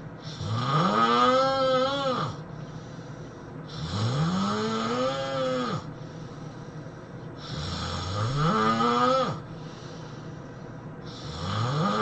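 A person snoring heavily: three long, pitched snores, each rising in pitch and then dropping off, about every three and a half seconds, with a fourth starting near the end.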